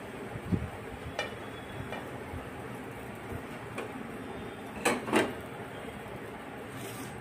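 A metal spatula clinks twice, quickly, against a small steel bowl of oil about five seconds in, over a steady background hiss. A soft knock and a lighter click come earlier.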